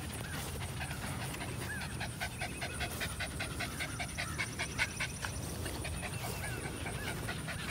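Young border collie panting rapidly, a quick, even run of short breaths several a second.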